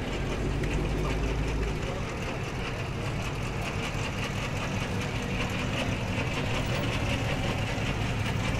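Car engines rumbling as cars drive slowly past at low speed. A deep, heavy rumble fades out in the first couple of seconds, then a steady, lighter engine rumble runs on as a 1970s Pontiac coupe rolls by.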